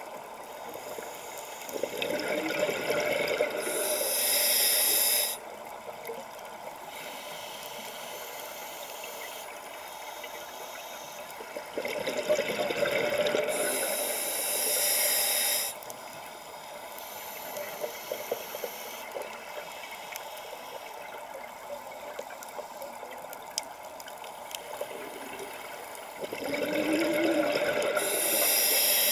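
A scuba diver breathing through a regulator underwater: three slow breaths, roughly ten to twelve seconds apart, each a stretch of bubbling followed by a loud hiss, with steady water noise in between.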